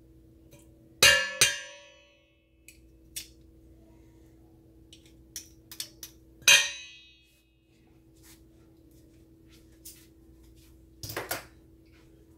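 Metal utensil striking a stainless steel mixing bowl: two ringing clinks about a second in, another a few seconds later, and a couple of duller knocks near the end, with light ticks between, over a faint steady hum.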